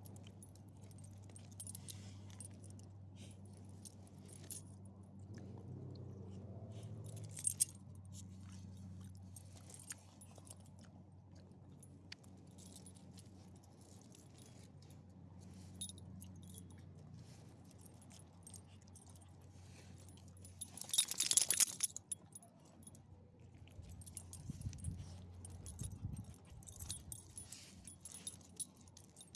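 Dog collar tags jingling in short, irregular bursts as small dogs walk, loudest about 21 seconds in, over a low steady hum that fades out a little later.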